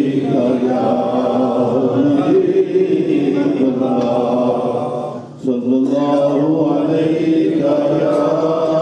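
A man's voice chanting a naat, a devotional poem in praise of the Prophet, unaccompanied, in long drawn-out melodic notes, with a short pause for breath about five seconds in.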